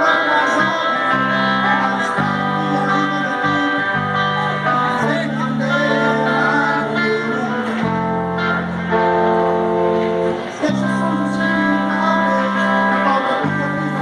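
Music: a song with plucked guitar over held chords that change every second or few.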